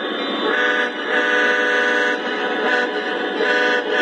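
Diesel horn from a Lionel O-scale locomotive's built-in sound system, sounding four blasts, the second the longest, over the steady rumble of the model trains running.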